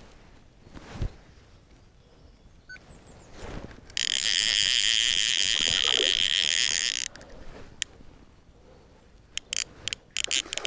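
Fly reel's ratchet drag buzzing loudly for about three seconds as a hooked fish runs and strips line, then stopping abruptly, followed by a few short clicks near the end.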